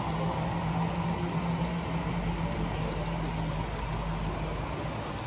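HO scale model freight cars rolling steadily along the track, their small metal wheels making a fine clicking patter on the rails, over a steady low hum.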